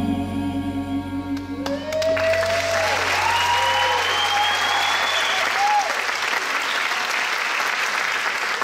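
A held closing chord of the music fades out, and about a second and a half in the audience bursts into applause with a few cheers, clapping steadily through the rest.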